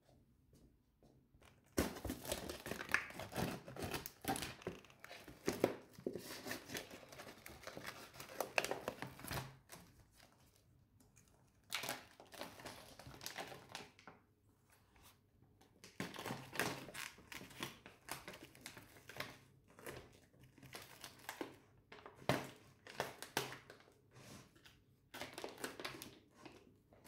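Clear plastic bag around a whole jamón serrano leg crinkling and rustling as it is worked open and pulled off the ham, in several spells separated by short pauses.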